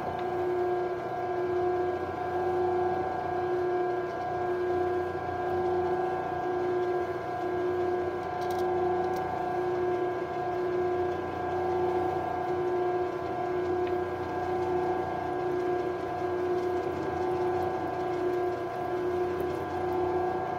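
Benchtop metal lathe running at steady speed, its motor and gear drive giving a steady whine that pulses slowly and evenly, while a center drill fed from the tailstock starts a center hole in the end of a pin being lubricated with cutting oil.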